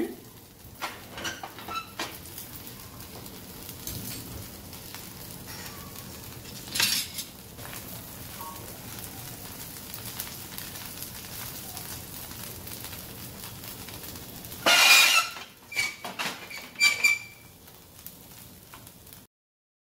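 Dosa batter and ghee sizzling steadily on a hot tawa over high gas, with a spatula knocking and scraping against the pan now and then. The loudest clatter comes about three-quarters of the way through, followed by a few short ringing clinks, and the sound cuts off just before the end.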